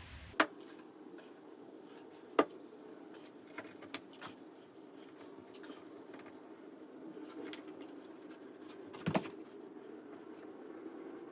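A caulking gun being worked while construction adhesive is laid along the drain edges: a few sharp clicks, the loudest about half a second in, near two and a half seconds and near nine seconds, over a steady low hum.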